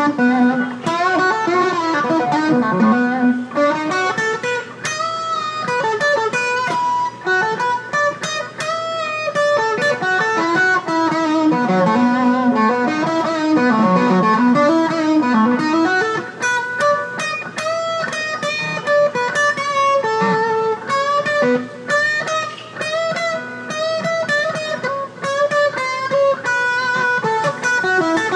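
Electric guitar playing a melodic lead lick in B minor built on half-step string bends. Notes are pushed up in pitch and released back down between quick runs of picked notes.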